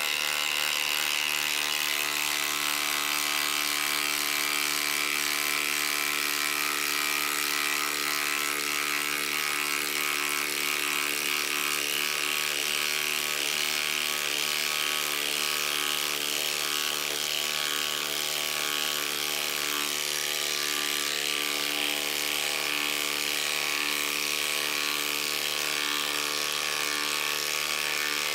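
Milwaukee M18 Fuel and M12 Fuel cordless impact drivers hammering without a break as they back long screws out of a wooden block: a fast, even mechanical rattle.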